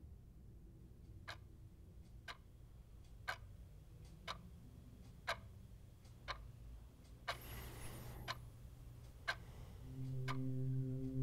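Clock ticking, one sharp tick about every second, in a quiet room. About seven seconds in comes a one-second burst of hiss, and near the end a low held tone swells in.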